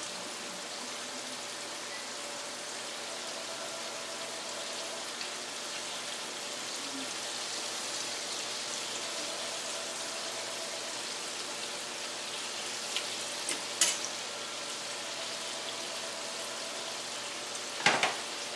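Chicken frying in hot shortening in a cast-iron skillet, a steady sizzle. A few short metal clinks come from a utensil about two-thirds through, and there is a louder knock just before the end.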